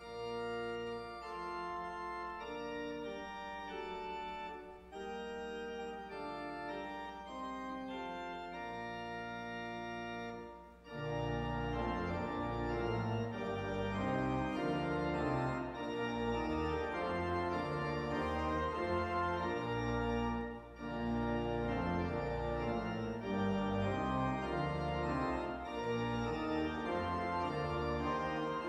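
Church organ playing slow, sustained chords. About eleven seconds in it grows louder and fuller, with deep bass notes added under the chords.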